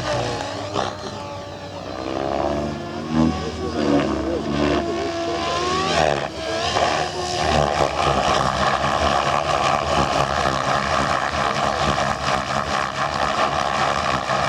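Compass Chronos 700 RC helicopter flying, its rotor and motor sound sliding up and down in pitch in the first half, then settling into a steady, even whine from about eight seconds in.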